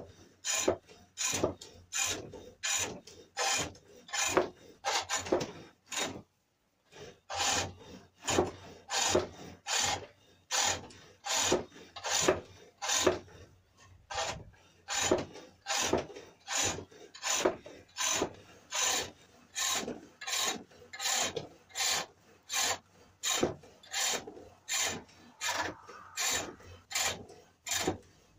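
Wood turning hook cutting cherrywood on a foot-powered pole lathe: a rhythmic scraping rasp on each treadle down-stroke, about three cuts every two seconds, with a short break about six seconds in.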